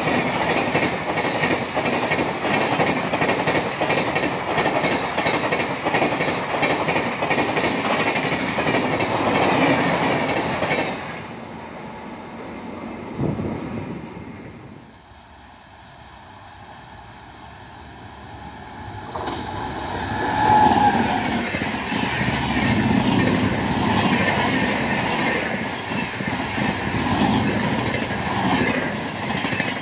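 Indian Railways express passenger coaches rushing past at speed, their wheels clattering rhythmically over the rail joints. The sound dies away about a third of the way in, and a second express then passes close by, with a brief high tone just as it comes in.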